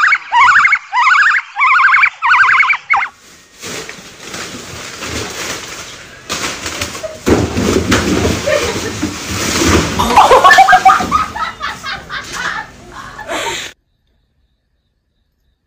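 White-cheeked gibbon calling: a fast series of loud rising whoops, about two a second, for the first three seconds. Then a long stretch of clattering, rustling noise from tumbling cardboard boxes, loudest in the middle, with a short cry in it. It cuts off suddenly into silence for the last two seconds.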